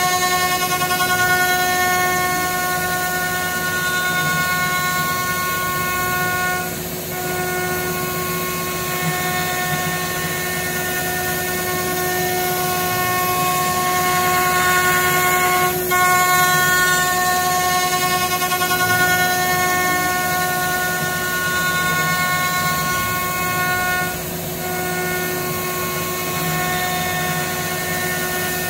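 High-speed electric spindle of a 5-axis CNC router machining a wooden chair part: a steady high whine with several overtones over the hiss of cutting. The whine sags twice, about seven and twenty-four seconds in, and briefly cuts out and picks up again about halfway through as the head moves between cuts.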